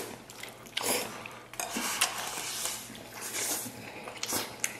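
Wooden chopsticks clinking and scraping against ceramic rice bowls, in a string of short, irregular strokes, while stewed pork belly and sauerkraut over rice are eaten.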